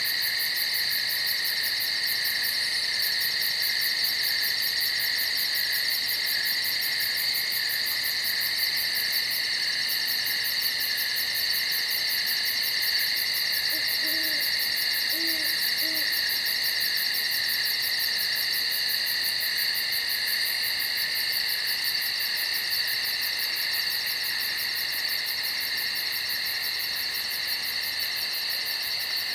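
Steady chorus of night insects, a continuous high trilling. About halfway through, an owl gives three short low hoots.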